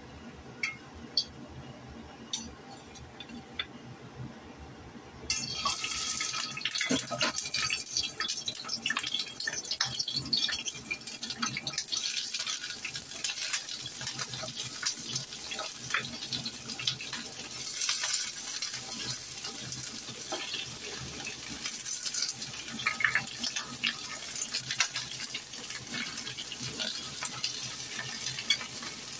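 Raw shrimp frying in hot oil in a wok. A quiet hiss with a few clicks at first, then about five seconds in a loud, steady sizzle starts, full of crackles, with a metal spatula scraping now and then as the shrimp are turned.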